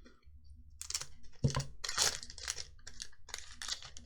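Foil booster pack wrapper being torn open and crinkled, a run of irregular crackling rustles.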